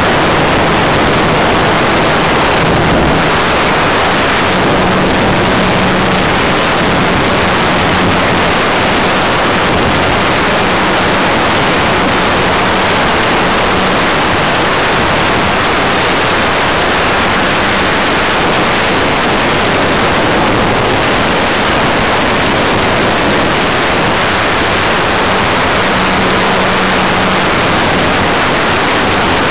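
Steady rush of airflow and motor noise picked up by a camera riding on a WOT4 RC model plane in flight, loud and hissy, with a faint low drone from the power unit that comes and goes, a little stronger near the end.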